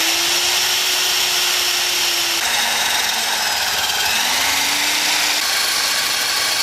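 Small brass wire-wheel brush spinning on a power tool and scrubbing rust off the knurled adjusting nut of an old pipe wrench held in a vice. It makes a steady scratchy hiss over a motor hum that drops in pitch about two seconds in as the brush bites harder, then picks up again a couple of seconds later.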